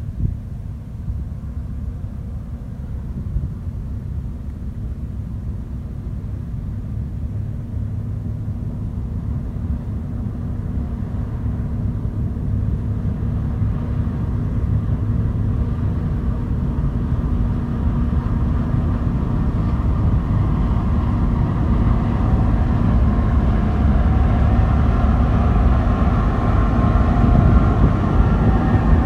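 Case IH Axial-Flow 8250 combine harvester running, a steady low rumble that slowly grows louder, with a higher whine joining in over the second half.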